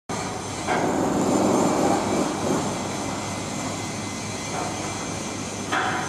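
Steady city street traffic noise, with a louder vehicle passing about a second in and smaller swells near the end.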